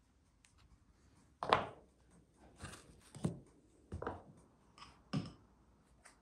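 About five light knocks and taps on a wooden board as soft cookie rounds are handled, filled and set down in stacks; the loudest comes about a second and a half in.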